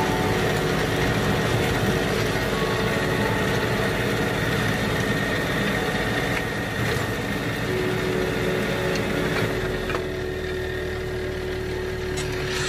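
Tractor engine running steadily; its low note shifts about ten seconds in.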